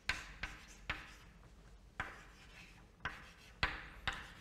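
Chalk writing on a chalkboard: a string of irregularly spaced sharp taps as the chalk meets the board, each followed by a short scratchy stroke.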